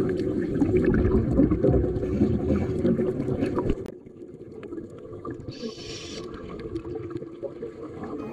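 Underwater sound around helmet divers: a low rumble full of crackling and bubbling, which drops suddenly to a quieter hiss and crackle about four seconds in, with a short burst of hissing bubbles near six seconds.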